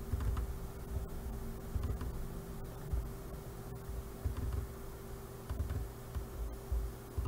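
Faint computer mouse clicks over a steady electrical hum and room noise, with soft, irregular low thumps.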